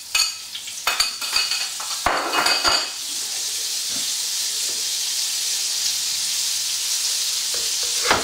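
Butter sizzling as it melts in a hot frying pan, a steady hiss. In the first three seconds it is broken by a few clinks and scrapes as the butter is pushed off a plate into the pan.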